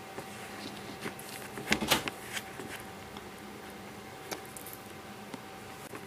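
Faint clicks of plastic pony beads knocking together as a peyote-stitch bead piece is handled and its string pulled tight, with a slightly louder cluster of clicks about two seconds in and another single click a couple of seconds later.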